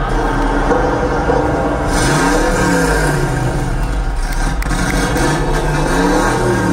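Car engine revving sound effect played loud through a stadium PA: the pitch swells up and falls back about two seconds in and again near the end, over a steady low rumble.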